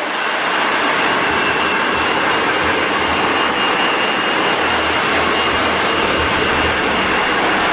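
Handheld hair dryers blowing on a client's hair: a loud, steady rush of air with a thin, high whine held throughout.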